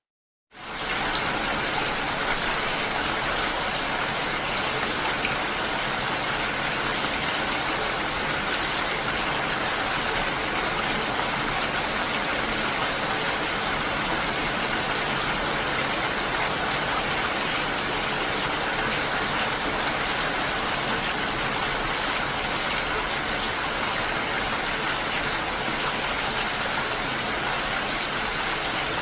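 Steady rain: an even, unbroken patter of rainfall that starts up after a brief silence, less than a second in.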